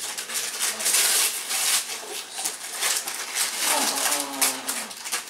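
Wrapping paper tearing and crinkling as presents are unwrapped, a dense rustle with many sharp crackles, loudest about a second in.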